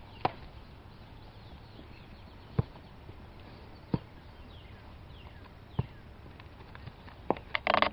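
Hoofbeats of a ridden Rocky Mountain horse on grass, faint and scattered at first, with birds chirping faintly. Near the end comes a quick run of sharper knocks and a short, louder burst as the horse comes closer.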